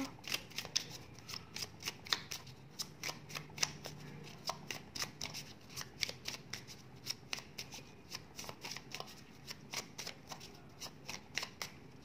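A deck of rainbow-edged oracle cards being shuffled by hand: a steady run of light, irregular card clicks and slaps, several a second.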